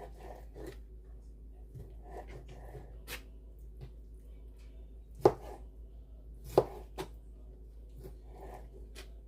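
Kitchen knife cutting a raw salmon fillet into bite-sized pieces, knocking on the cutting board in irregular strokes. Two sharper knocks come a little past the middle.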